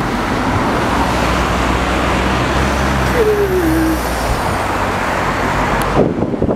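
City road traffic heard from a bicycle: a steady rush of traffic noise, with a motor vehicle's engine humming close by for about four seconds and a short falling whine partway through. Near the end come a few knocks.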